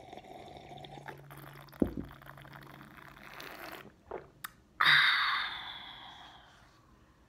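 Gulping a drink from a mug, with a soft thump partway through. About five seconds in comes a sudden loud breathy exhale that fades away over about two seconds.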